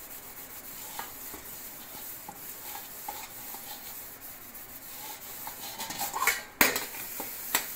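Sponge scrubbing a brass plate with a steady soft rubbing and faint ticks. A sharp knock about six and a half seconds in, and another near the end.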